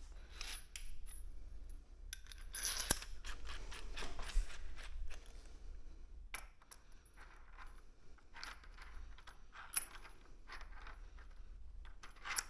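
Irregular light metallic clinks and clicks of hand tools: a socket wrench and extension being fitted and turned on a frame-slider bolt.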